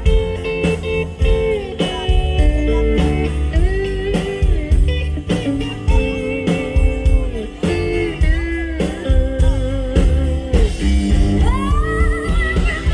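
Live band playing amplified blues-rock: electric guitars and fiddle over drums with a steady beat, with a voice coming in near the end.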